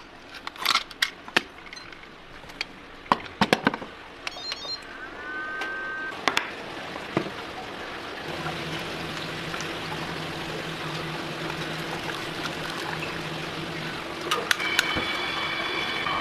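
Sharp metallic clicks and clanks of a stainless pressure cooker's lid and latch clamps being handled, then a steady kitchen hum with a low steady tone from about eight seconds in.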